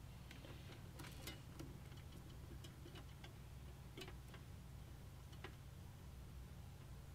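Faint, irregular small clicks and light taps from hands handling small computer parts, such as front-panel header connectors and pins, over a low steady hum.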